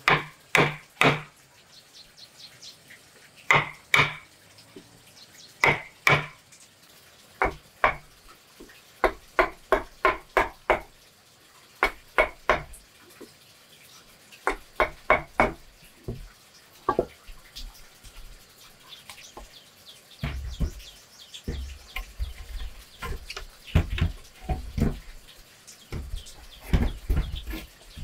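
Hammer blows on wood in short groups of sharp knocks, driving a chisel into a wooden plank and nailing planks to a timber frame. In the last third, heavier low thuds join in as boards are shifted and knocked into place.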